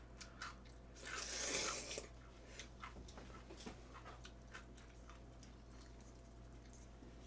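Jjamppong noodles slurped in one long hissy pull about a second in, followed by soft chewing with small wet clicks and smacks of the mouth.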